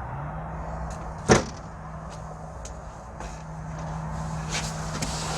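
A single sharp bang about a second in, over a steady low hum.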